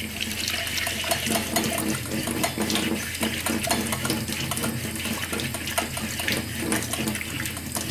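Kitchen faucet running into a stainless steel sink while the moka pot's upper chamber is scrubbed under the stream with a scouring sponge, giving a steady splash of water with many small irregular scrubbing and knocking sounds.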